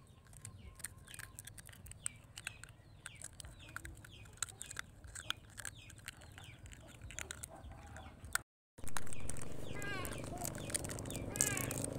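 Chickens clucking and chirping in short, quick calls, with many small sharp clicks mixed in. The sound cuts out for a moment about two-thirds of the way through, and the clucking is louder after it.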